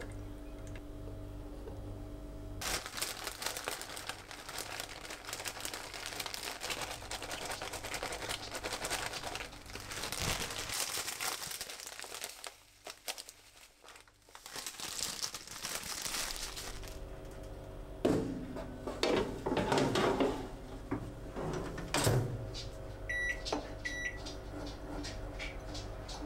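Crinkling and rustling as shredded cheese is scattered over a gratin. Then a few clunks and two short electronic beeps from a microwave oven's keypad near the end.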